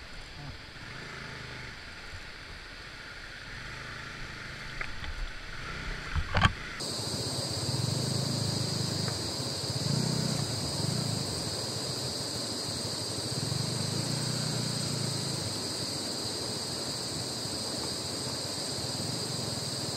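A motorcycle rolling slowly at low revs over a wooden plank bridge, its low engine note joined by a few knocks from the planks, the sharpest about six seconds in. From about seven seconds in, the rush of a rocky river and a steady high insect drone are loudest, with the engine swelling faintly underneath.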